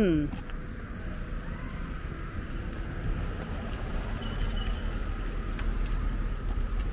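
Steady low rumble of a vehicle running, growing a little stronger about four seconds in.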